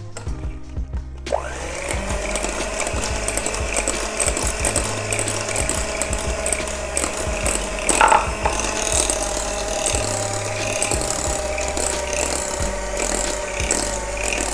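Electric hand mixer starting about a second in, spinning up to a steady whine as its beaters work beaten eggs into choux pastry dough in a glass bowl. There is a sharp knock partway through.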